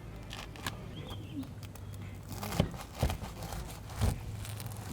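A few sharp knocks and some rustling handling sounds, the loudest knocks about two and a half, three and four seconds in, over a steady low hum.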